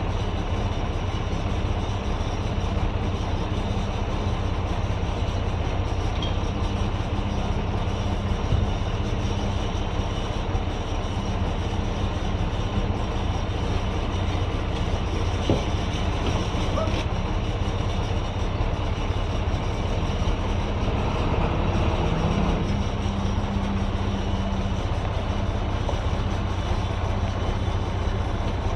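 Vehicle engine running steadily with a low, even hum, its note shifting slightly about three-quarters of the way through.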